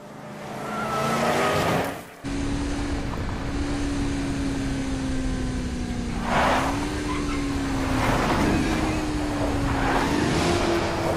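BMW sedan driven hard at speed, its engine note swelling for the first two seconds, then, after an abrupt cut, holding a steady high-revving drone. The pitch lifts twice, about six and ten seconds in, and each lift comes with a hissing whoosh of tyre and road noise.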